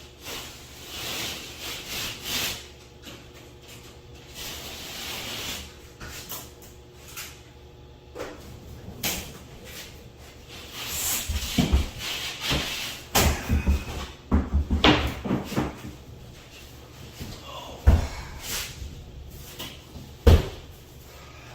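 Irregular knocks, scrapes and rubbing from wooden or building materials being handled and set down, with a cluster of loud thumps in the middle and two sharp single thumps near the end.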